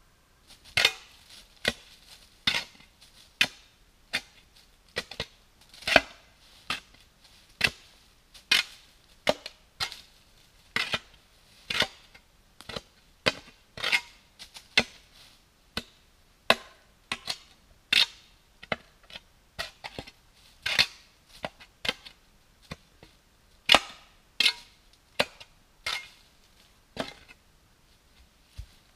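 A long series of sharp knocks or blows, irregular at roughly one to two a second, each with a short ringing tail.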